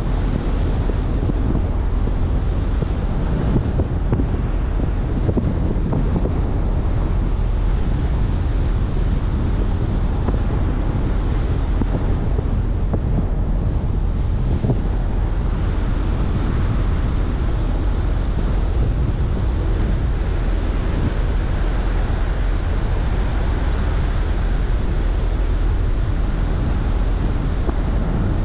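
Steady rumble of a car driving at speed: wind buffeting the microphone over tyre and road noise, unchanging throughout.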